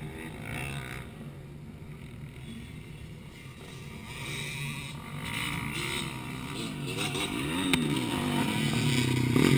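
Motocross dirt bike engines revving up and down as they race around the track, getting louder toward the end.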